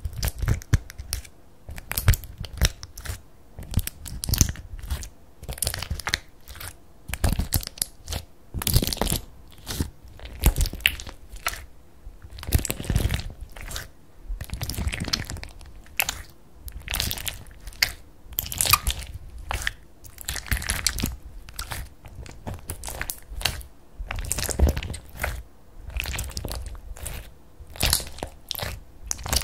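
Clear slime packed with bubbles and star-shaped beads being pressed, poked and squeezed by hand in a glass bowl, giving a steady run of irregular sticky crackles and pops.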